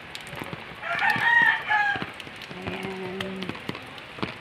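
A rooster crows once, a call of about a second, over steady rain with drops tapping on an umbrella. A lower, steady tone follows for about a second.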